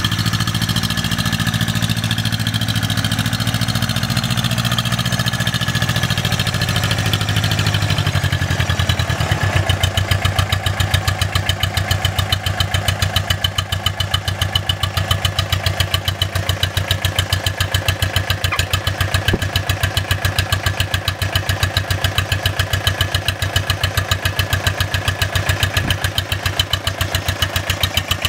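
Two-cylinder diesel engine made from half of a 1.6-litre car diesel, powering a small tractor. It runs with a steady low drone for about the first nine seconds, then settles into an idle of distinct, evenly spaced firing beats.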